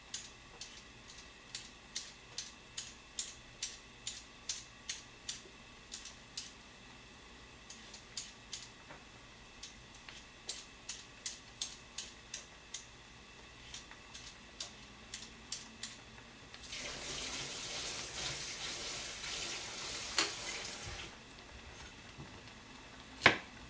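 Vegetable peeler scraping a carrot in short, quick strokes, about two to three a second, pausing now and then. Then a kitchen tap runs for about four seconds and stops, and a single sharp knock comes near the end.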